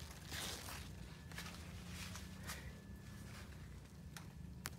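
Cucumber leaves and vines rustling and crackling softly as a hand handles them, with a sharp click near the end, over a steady low hum.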